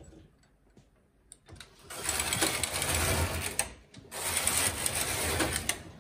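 Double-bed knitting machine carriage pushed across the needle beds twice, one pass each way, each a rapid clicking run of about a second and a half with a short pause between: knitting two rows of double-bed jacquard.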